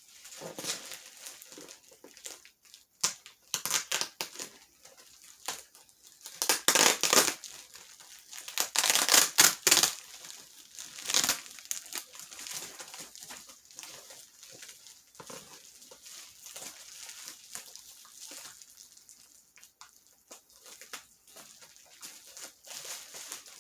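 Doll packaging being unwrapped by hand: irregular crinkling and rustling, with two louder bursts of crumpling about a third of the way through and again near the middle.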